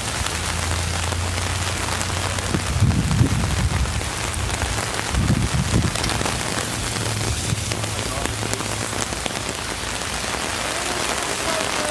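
Steady heavy rain pattering on an umbrella held overhead, with a low hum underneath and a couple of brief low thumps about three and five and a half seconds in.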